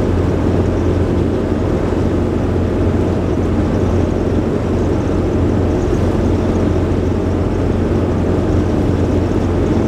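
A 22-foot Lazy Daze motorhome cruising at highway speed, heard from inside the cab: a steady low rumble of engine and road noise.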